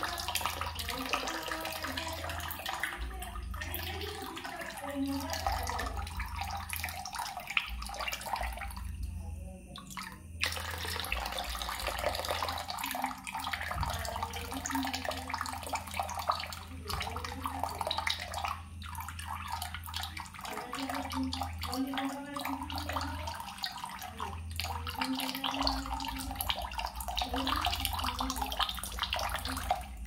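Steady rush of running water, a nature water-sound track, dipping out briefly about nine seconds in.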